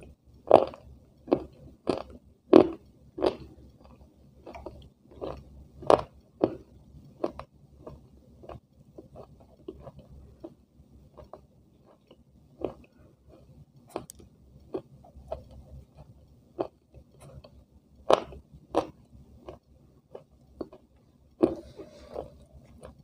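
Close-up eating sounds: a thin, white, crisp snack being bitten and chewed, crunching sharply. The crunches come about twice a second at first, then turn softer and more irregular, with a few loud crunches again near the end.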